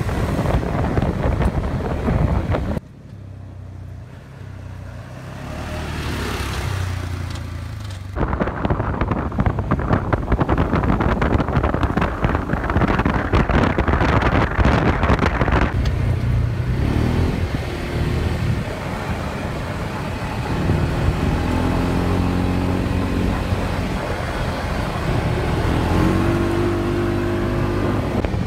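Side-by-side ATV engine running as it is driven over a dirt road, mixed with wind buffeting the microphone and road rumble. The sound drops away for a few seconds about three seconds in, and near the end the engine pitch steps up and down several times.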